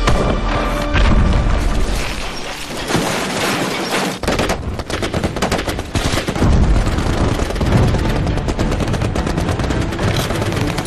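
Battle sound effects from a war film: rapid rifle and machine-gun fire with booming explosions, mixed with film score music. The shooting grows dense about four seconds in.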